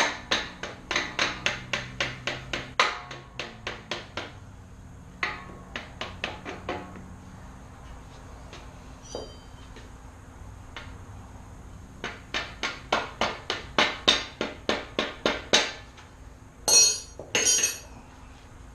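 Runs of sharp metal-on-metal taps, about four or five a second, from hammer work on a dirt bike's swing arm pivot bolt, with two brighter clinks near the end.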